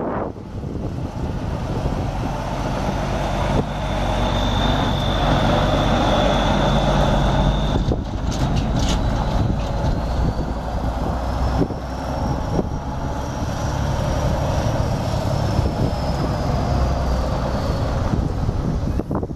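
An engine on a spreader truck running steadily. A steady high whine holds for a few seconds, a few sharp clicks come about halfway through, and then a second high whine slowly rises and falls.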